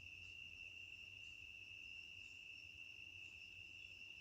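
Faint, steady high-pitched chirring of crickets, unbroken throughout, over a low background rumble.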